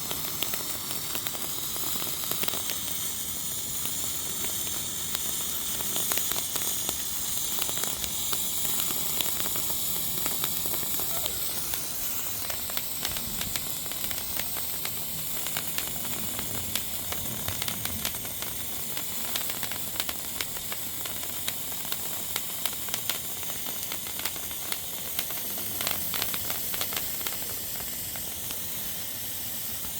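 A hand-held 'magic wand' novelty firework burning with a steady hissing spray of sparks, broken by many small crackling pops.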